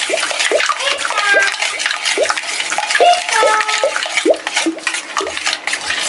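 Steel spoon stirring juice in a stainless steel bowl: the liquid sloshes and gurgles, and the spoon clicks and scrapes against the bowl's sides.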